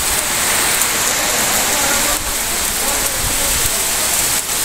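Heavy rain pouring steadily in a loud, even hiss.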